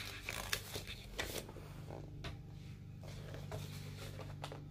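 Faint rustles and light taps of a paperback picture book's pages being handled and turned, over a low steady hum.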